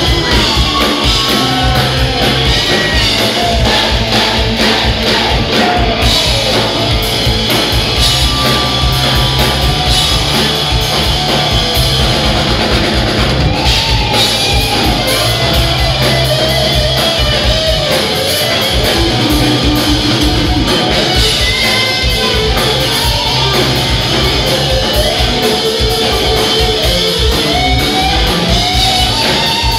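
Rock power trio playing live and loud: electric guitar leads over electric bass and a drum kit, heard in a large hall.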